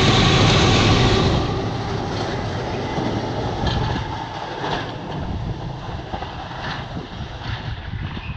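Freight train of two Class 68 diesel locomotives and nuclear flask wagons, its last wagon rolling past on the rails with a loud rumble. About a second in the noise drops and keeps fading as the train draws away, with a few faint clicks from the wheels.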